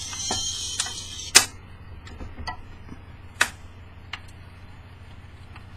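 1958 Admiral 432 record changer cycling: the record's playback hiss cuts off about a second and a half in with a loud clunk, then the mechanism clicks twice more as the tone arm returns to its rest, over a steady low hum.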